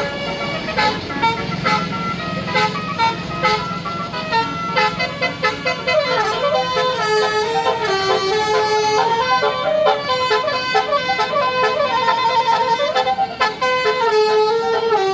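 A tour bus's basuri musical horn playing a song melody, one note after another, over a steady low hum.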